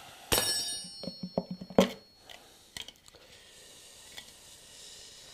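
Suzuki GSX-R 750 engine's clutch cover being pulled free from the crankcase after being tapped loose: one sharp clank with a metallic ring, then a quick run of about six light knocks and rattles as the cover comes away, and a last knock a little later.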